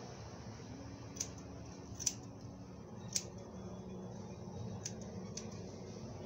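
Scissors snipping hair during a haircut: five short, sharp snips at uneven intervals over faint room tone.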